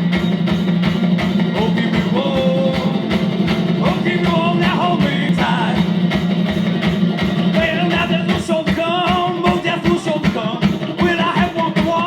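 A live band playing a rock song: a steady beat of about four strokes a second under a wavering melody line.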